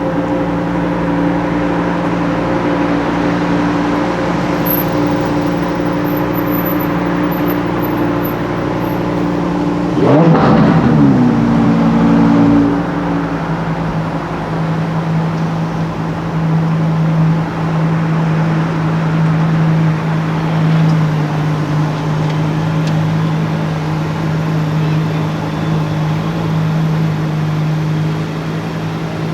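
Sports car engine idling steadily. About ten seconds in it gives one quick rev that rises and falls back, then settles into a steady, lower running note.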